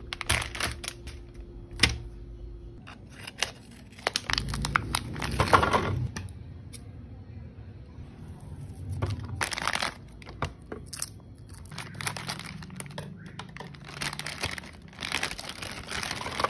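Plastic food packaging crinkling and tearing as it is handled and opened, with scissor snips and sharp clicks and knocks of food and utensils on a plate. A steady low hum sounds at the start and stops about three seconds in.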